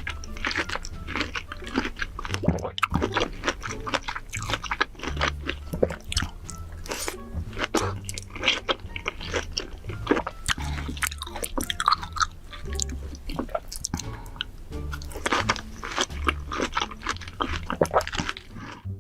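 A person chewing and biting crunchy food close to the microphone, with many irregular crunches throughout. Background music with a steady bass runs underneath.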